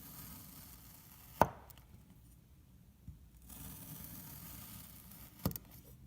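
A knife slicing through kinetic sand with a soft gritty scraping, the blade knocking down sharply twice, about a second and a half in and again near the end.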